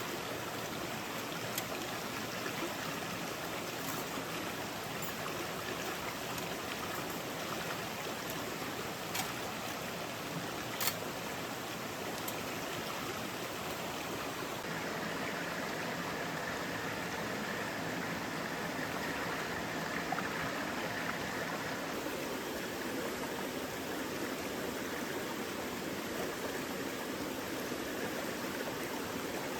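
Mountain stream running steadily, with a few faint clicks over it.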